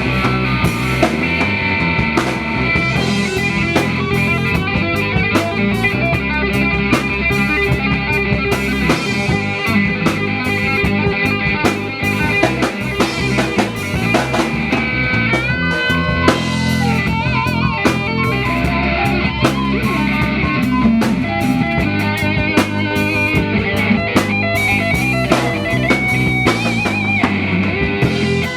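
Live band playing a rock-style number on guitar and drum kit during a sound check, with a lead line of bent, wavering notes about halfway through and again near the end.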